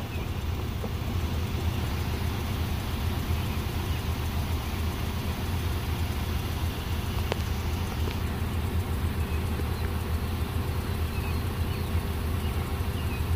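A steady low engine rumble, even in level throughout, with no horn blast standing out; a single faint click about seven seconds in.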